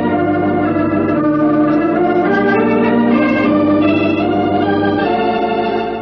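Organ playing a musical bridge between scenes of an old-time radio drama: loud, sustained chords that change every second or so.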